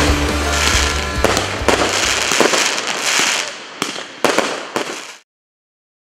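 Fireworks bursting and crackling, with a few sharp separate bangs near the end, over background music that fades out about two seconds in; all sound cuts off suddenly about five seconds in.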